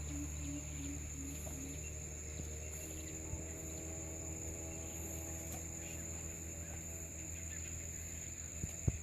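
Insects droning steadily at one high pitch over a low steady hum, with a row of five short low notes in the first two seconds and a single sharp knock near the end.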